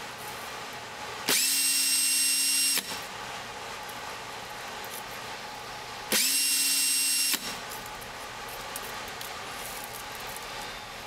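Cordless drill spinning a Singer potted-motor armature in two short bursts, about a second and a half apart at first and then again about five seconds later, while an abrasive strip is held on the commutator to clean it. Each burst is a motor whine that rises quickly in pitch as the drill spins up, holds steady, then cuts off.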